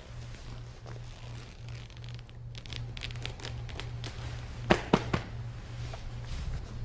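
Cotton gi jackets rustling and feet shuffling on a mat as two people grapple. Three sharp knocks come in quick succession a little past the middle, over a steady low hum.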